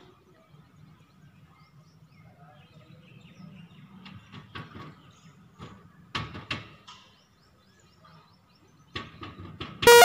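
A peacock's beak tapping on a window pane: a few scattered taps, the loudest pair about six seconds in, over a faint low hum. Just before the end a loud musical jingle cuts in.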